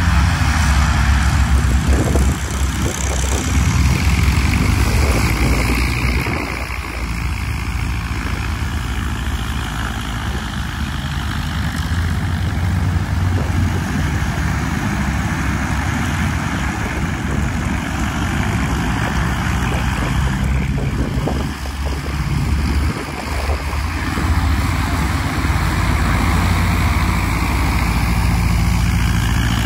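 Piston engines and propellers of light single-engine planes running at low power as they taxi for departure: a steady, loud engine drone whose level dips briefly a few times.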